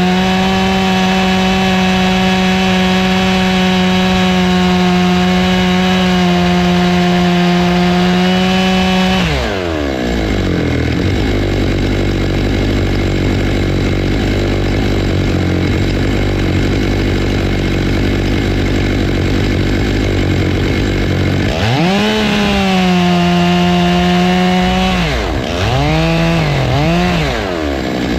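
Stihl MS 661 two-stroke chainsaw with a ripping chain, mounted on a Logosol F2 Plus chainsaw mill, held at steady full throttle for about nine seconds, then let off and dropping abruptly to idle. It idles for a while, revs up again for about three seconds, drops back, and is blipped twice before settling at idle.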